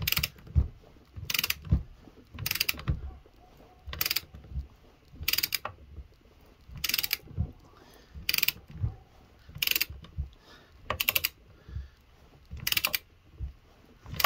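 Long-handled ratchet being worked in strokes, clicking in a quick run on each return swing, about once every second and a half. It is tightening a lug nut over stacked washers to pull a new wheel stud into the axle flange.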